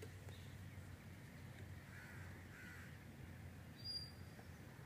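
Quiet farmland ambience: faint distant bird calls over a low steady hum, with a short high chirp about four seconds in.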